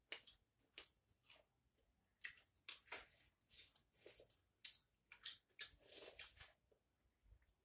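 Close-miked eating with the hands: a faint, irregular run of short wet clicks and smacks from chewing and from fingers working rice and curry on a plate.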